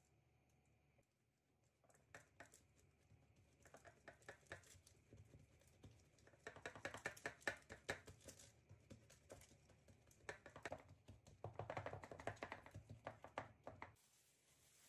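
Fingertips and palm pressing and patting soft brioche dough out across a parchment-lined metal baking tray: quiet, rapid taps and pats, in two busy stretches, that stop shortly before the end.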